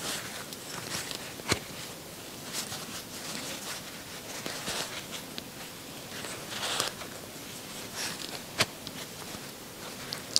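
Crochet hook working yarn: soft rustling and scratching as the yarn is drawn through the stitches, with a few sharp clicks from the hook, the clearest about a second and a half in and again near the end.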